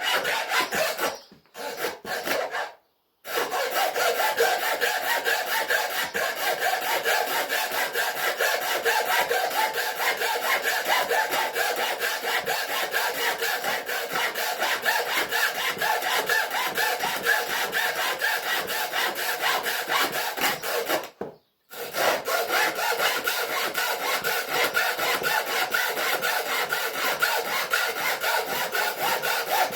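A saw cutting through a high-pressure hydraulic hose with steady back-and-forth strokes. It stops briefly twice in the first few seconds and once about two-thirds of the way through.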